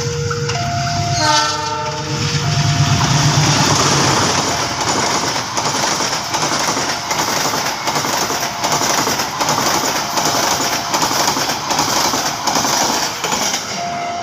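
CC206 diesel-electric locomotive sounding its horn about a second in, then the passenger train it hauls rushing past close by at speed, the wheels clattering rhythmically over the rail joints.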